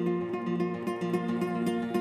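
Solo acoustic guitar fingerpicked in a guitar interpretation of kora music, with a stream of quick ringing notes over repeating sustained bass notes.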